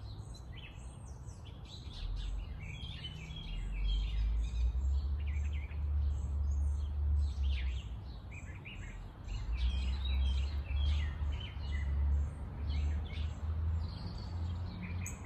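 Wild songbirds chirping and calling, short high notes scattered throughout, over a low rumble that comes in about two seconds in and rises and falls.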